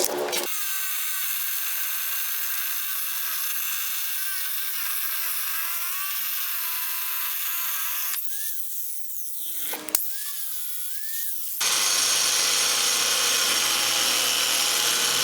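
Angle grinder running at speed with a high-pitched whine while cutting tile, its pitch wavering under load. There are abrupt changes of section about 8 and 12 seconds in, and the last few seconds are a louder, harsher cutting noise.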